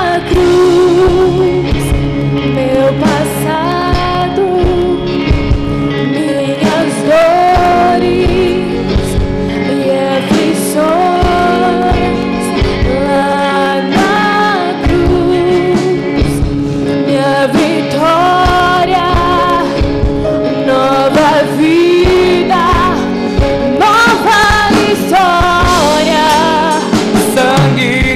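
Live Christian worship song played by a band with drums, bass guitar and keyboard, with a woman singing the lead and a man's voice taking over near the end.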